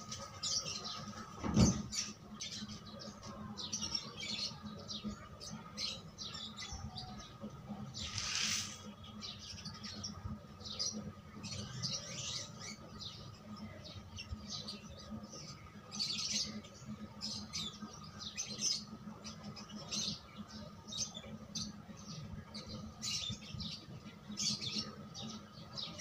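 Birds chirping repeatedly over a steady hum, with a single sharp thump about a second and a half in.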